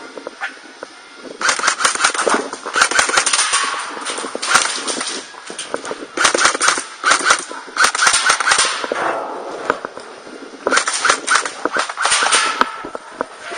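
Airsoft guns firing rapid bursts of sharp clicking shots, in three spells of firing: one starts about a second and a half in, one mid-way, and one near the end.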